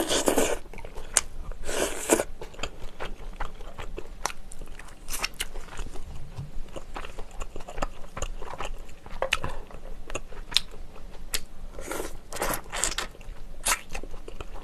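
Close-miked eating sounds: a person biting and chewing meat off pork bones, with many short wet clicks and smacks and a few louder, longer mouth sounds.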